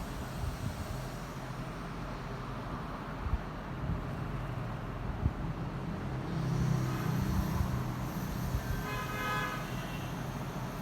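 Steady road traffic noise, a low rumble of passing vehicles, with a faint horn-like pitched tone about nine seconds in.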